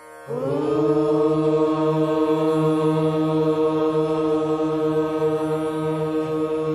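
Voices chanting one long held note in unison as part of a prayer, starting about a quarter of a second in, sliding briefly up into pitch and then holding steady.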